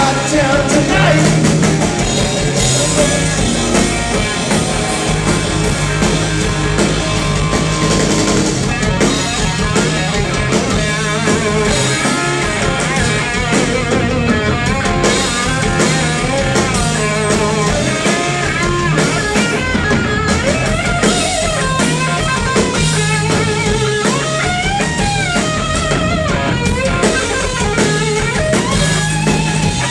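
Live rock band playing an instrumental break: a lead electric guitar solo with bending notes over bass guitar and drum kit.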